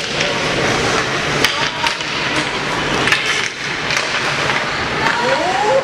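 Hockey sticks and puck clacking against the ice and boards: about five sharp knocks, a second or so apart, over the steady hubbub of a rink crowd. A voice calls out near the end.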